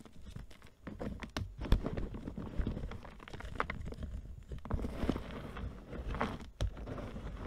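Hands crumbling and crushing reformed gym chalk in a bowl of loose chalk powder: irregular dry crunches and crackles, with a sharp crack a little under two seconds in.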